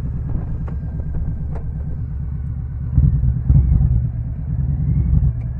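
Touring motorcycle engine running low and even while the bike slows at a stop, then louder in uneven pulses as it pulls away into a turn about three seconds in.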